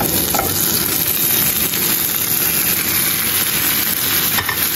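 Kitchen exhaust fan over the stove running with a steady whooshing hum.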